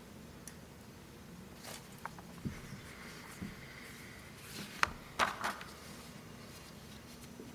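Quiet room tone with scattered soft rustles and light knocks of papers being handled at a lectern microphone. The loudest sounds are a few sharp scrapes about five seconds in.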